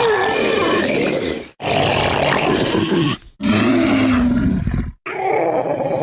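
Utahraptor dinosaur sound effects: four separate roaring calls, each about a second and a half long, with short silent breaks between them.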